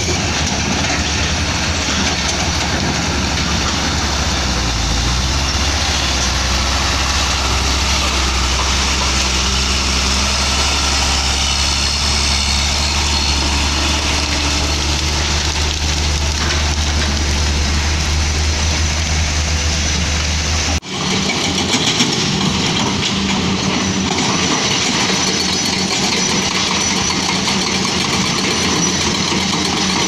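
Heavy diesel engines of an excavator and a dump truck running steadily, with a deep low rumble. About two-thirds of the way in, the sound changes abruptly to a different engine note.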